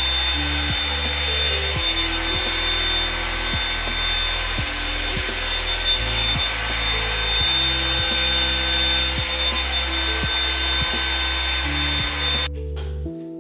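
Blow dryer brush running steadily, a loud rushing hiss of air with a high motor whine, cutting off suddenly near the end. Background music with low bass notes plays underneath and carries on after it.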